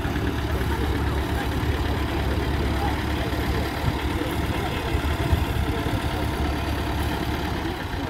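Vintage Massey Ferguson tractor engine running at a steady idle.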